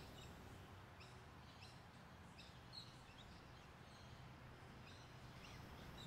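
Near silence: quiet room tone with faint, scattered bird chirps.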